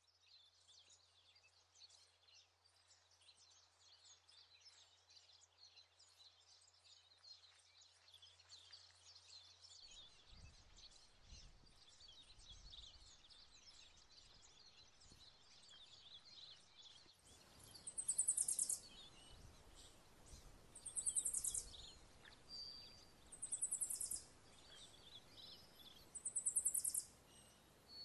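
Faint, dense high chirping and twittering like birdsong. From about two-thirds of the way in, a louder high buzzing trill repeats about every three seconds, over a low rumble.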